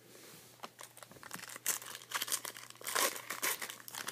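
Foil wrapper of a trading-card pack crinkling and tearing as it is opened by hand: a quick run of sharp crackles that starts faint and grows loud after about a second and a half.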